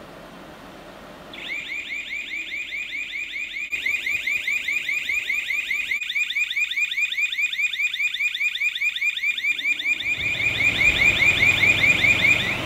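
Electronic alarm of a pressurized welding habitat's gas-detection system sounding during a gas test: a rapid, pulsing two-tone electronic alarm that starts about a second in and grows louder toward the end. A low rumble joins about ten seconds in.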